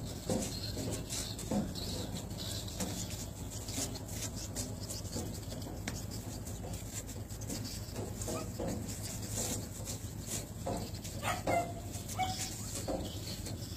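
Steady low hum of a ship's engines, with short sharp breaths from a man shadow boxing, coming at irregular intervals. A few brief higher-pitched calls sound near the end.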